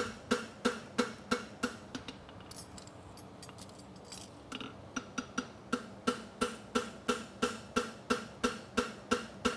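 Hand hammer striking a red-hot steel horseshoe on the anvil horn at a steady pace of about three blows a second, each blow ringing the anvil. The hammering stops for about two and a half seconds from around two seconds in, then resumes at the same pace. This is forging to rebuild the shoe's toe.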